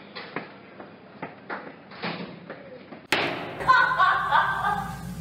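A string of dull thuds and taps, two or three a second, then a sudden loud hit about three seconds in, followed by loud laughter.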